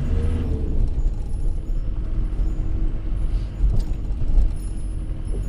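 Diesel camper van's engine and road noise heard from inside the cab while driving, a steady low rumble, with a few light clicks past the middle.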